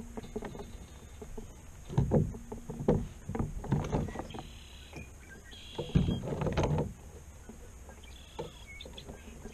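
Irregular knocks and thumps against the plastic hull of an Ascend FS128T sit-on-top fishing kayak as gear is handled beside the seat, loudest about two seconds in and again about six seconds in.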